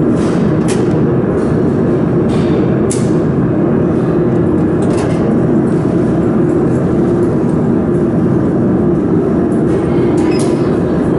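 Steady, loud machine hum with a strong low tone, typical of a laser welder's water chiller and cooling fans running, with a few sharp clicks over it.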